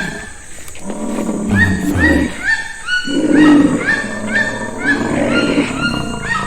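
Layered wild animal calls: a quick, repeating run of short rising cries over a lower, rough growling layer, with two low thuds about one and a half and two seconds in.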